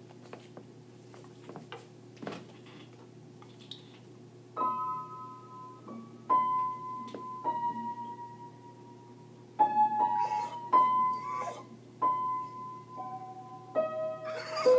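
Keyboard playing a slow melody in single sustained piano notes, starting about five seconds in after a few faint clicks. Near the end the Samoyed begins to join in with short vocal sounds over the notes.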